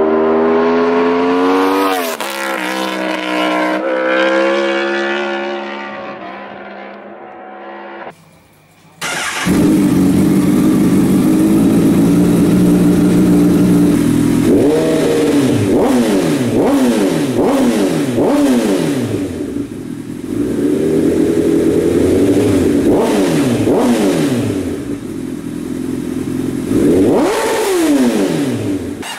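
A sportbike engine drops in pitch and fades away. After a short break, a Honda CBR1000RR's inline-four, on paddock stands, idles, then is blipped repeatedly, each rev rising and falling sharply in quick clusters.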